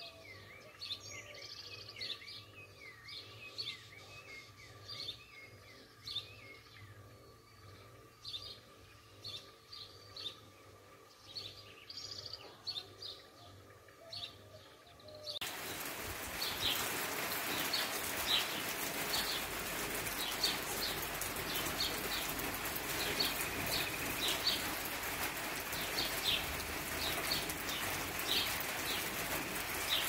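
Songbirds chirping and calling, with a quick run of repeated falling calls in the first few seconds over a faint steady tone. About halfway through, a loud, even hiss comes in and stays, with short high bird chirps continuing over it.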